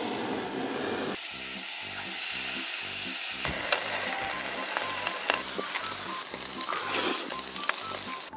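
Spicy bulgogi meat sizzling as it fries on a coal-briquette grill. Background music with a steady beat comes in about a second in.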